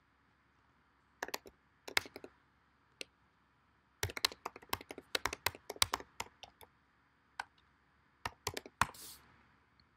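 Typing on a computer keyboard: a few scattered keystrokes, then a quick run of them from about four seconds in, and a last handful near the end.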